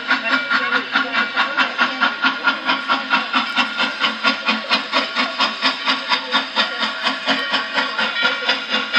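Norfolk and Western J class 611, a 4-8-4 steam locomotive, working under power as it approaches: a steady, even exhaust chuff about four times a second over hissing steam.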